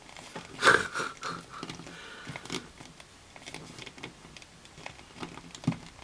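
A person's short, loud breath about a second in, then light clicks and taps of a plastic action figure being handled and posed on a tabletop, with a soft knock near the end.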